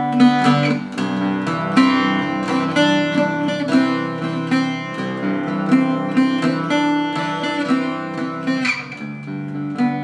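Newly built mandocello, still in the unfinished white wood and freshly set up and voiced, being picked: a steady run of plucked notes and chords on its paired strings, each ringing on under the next, with a brighter strum near the end.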